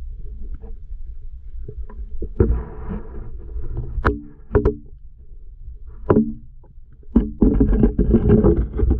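Muffled water sounds picked up by a camera held underwater: a low sloshing rumble broken by several sharp knocks with short hollow gurgles after them, growing louder and busier near the end.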